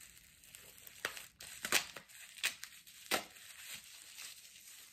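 Plastic bubble wrap crinkling as it is handled and unwrapped from a small bottle, with four louder, sharp crackles in the middle.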